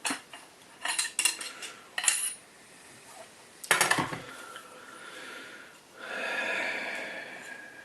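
Small metal rifle parts and tools clinking and clattering while a barrel assembly is worked on by hand: a run of sharp clicks, a louder clatter about halfway through, then a longer rubbing noise near the end.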